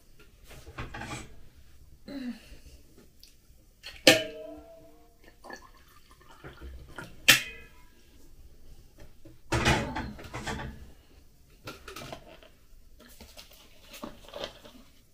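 Two ringing metal clanks from a steel stovetop kettle being handled, then hot water poured from the kettle into a ceramic mug for about a second. Near the end come small clicks as a plastic bottle cap is twisted open.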